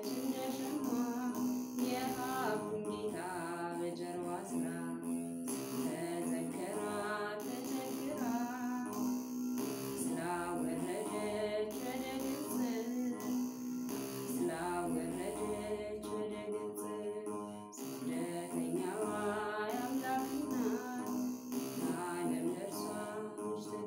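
A woman singing an Amharic Ethiopian Orthodox hymn while plucking a begena, the large Ethiopian lyre, whose low strings buzz under her voice.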